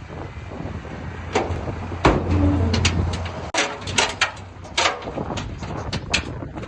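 Heavy earthmoving machine's engine running with a low rumble that swells for a second or so about two seconds in, under a scatter of sharp metallic clanks and knocks.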